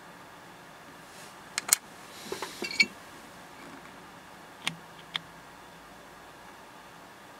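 Handling noise: a few sharp clicks and a brief rustle, heard over a faint steady background hiss.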